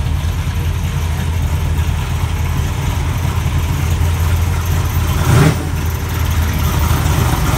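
1970 Chevrolet Chevelle SS's V8 idling low and steady as the car creeps forward, with a brief louder burst about five seconds in.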